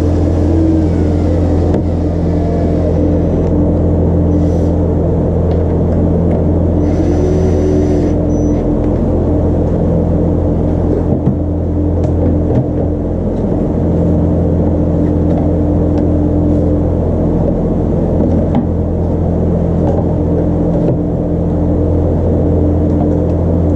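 A steady machine drone: a constant low hum with a few fixed tones above it, unchanging throughout.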